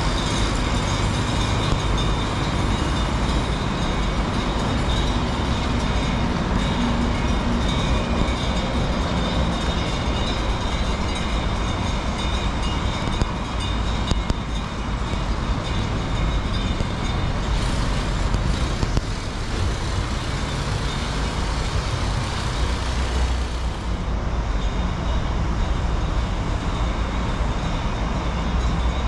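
Steady outdoor background noise with a strong low rumble, like traffic heard from the grounds. A brighter hiss rises for several seconds past the middle, then eases.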